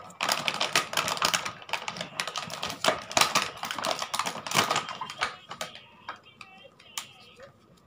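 Small hard-plastic toy cookware pieces (pots, lids and a toy egg) clicking and clattering as they are handled and set down on a plastic toy stove: rapid irregular taps for about five seconds, then only a few.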